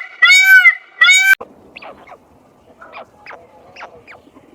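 A bird's loud honking calls, about half a second each and arching up and down in pitch, repeated three times and cut off abruptly about a second and a half in. Faint scattered chirps follow.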